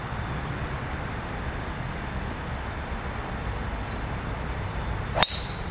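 A golf driver striking a teed ball once near the end: a single sharp, ringing crack of the clubhead on the ball on a tee shot. Before it there is only a steady, fairly quiet outdoor background with a constant high-pitched whine.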